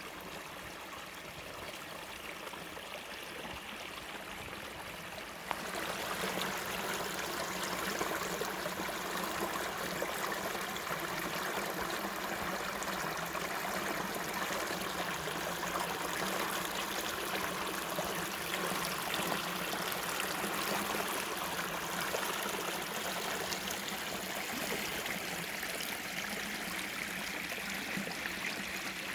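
Small forest stream babbling and trickling steadily; the water sound jumps suddenly louder and fuller about five seconds in.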